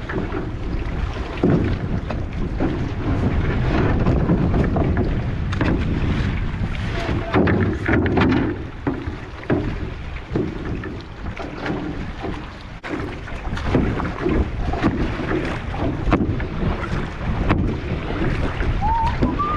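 Wind buffeting the microphone in a steady low rumble, with frequent short knocks and splashes from a wooden canoe paddle being worked through the water as the canoe is paddled away from shore.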